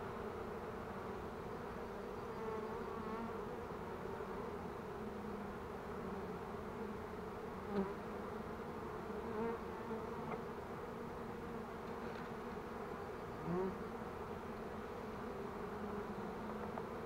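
Honeybees buzzing around an open hive box: a steady hum with a few brief louder buzzes.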